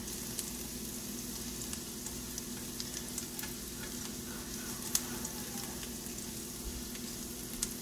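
Minced garlic sizzling in oil in a nonstick frying pan on lowered heat: a steady hiss with scattered crackles, as a silicone spatula stirs it around the pan.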